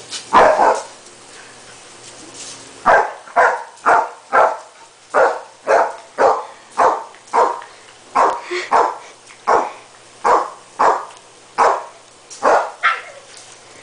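A terrier barking in a long string of single barks, about two a second, with two barks right at the start and a short pause before the string begins.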